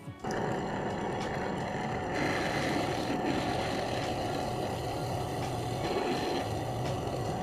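A power tool motor running steadily. It cuts in just after the start and grows a little louder about two seconds in.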